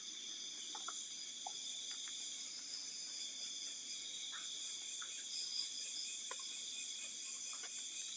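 Steady high-pitched hiss with a few faint, scattered clicks.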